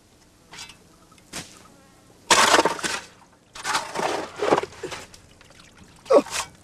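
Digging by hand in a hole in dry sand and soil: a run of short, rough scraping and scooping bursts of loose earth, the loudest one near the end.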